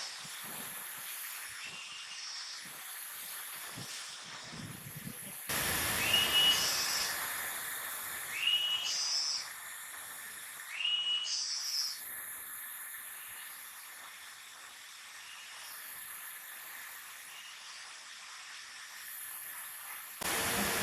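Steady hiss with a short, rising chirp repeating about every two seconds; the sound gets louder abruptly about five seconds in.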